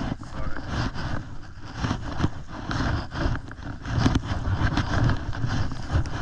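Footsteps and legs pushing through tall dry grass and weeds: uneven swishing and crunching of brushed stems, with low rumbling wind noise on the microphone.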